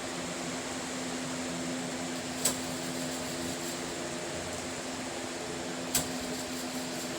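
Steady rushing of a running fan or blower with a constant low hum, broken by two sharp clicks about three and a half seconds apart.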